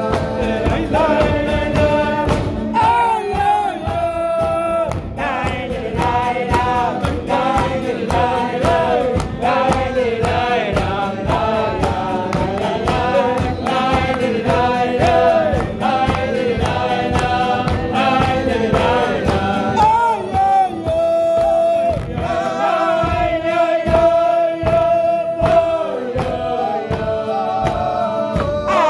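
A group of men singing a melody together at a kumzits, over a steady beat.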